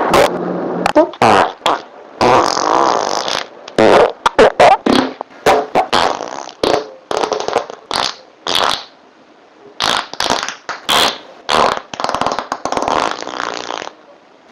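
A rapid string of human farts, one after another: many short, sharp pops and a few longer, sputtering rips, with a brief pause about two-thirds of the way through.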